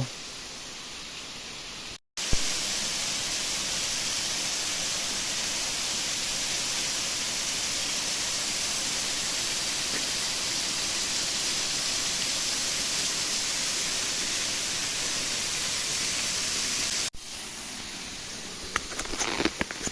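Steady, even rush of water from a waterfall. After a brief dropout about two seconds in it cuts in louder, then drops back to a quieter rush near the end.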